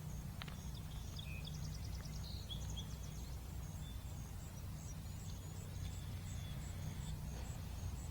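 Outdoor wildlife ambience: small birds chirping and trilling briefly in the first few seconds, over a high-pitched call repeating evenly, about three times a second, and a low steady rumble.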